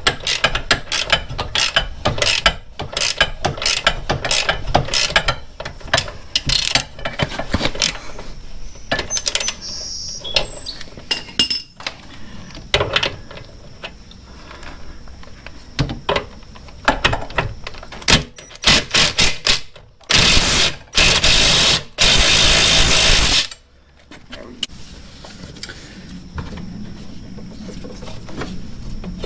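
Hand tools working the rear shock bolt of a Honda Goldwing GL1500 loose: rapid ratchet-like clicking and metal knocks, thinning out after about twelve seconds. Two loud noisy bursts come about twenty seconds in.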